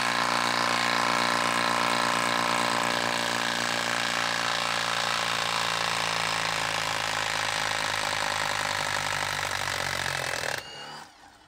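Milwaukee M18 Fuel half-inch compact impact wrench (2855-20) in auto mode, rattling steadily as it backs a long lag bolt out of wood. It stops suddenly about ten and a half seconds in.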